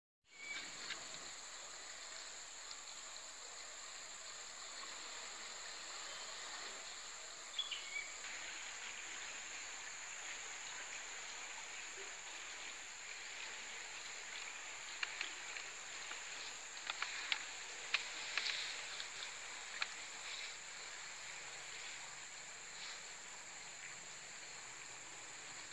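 Steady high-pitched drone of insects over a soft outdoor hiss, with a short chirp about eight seconds in and a scatter of brief clicks and chirps a little past the middle.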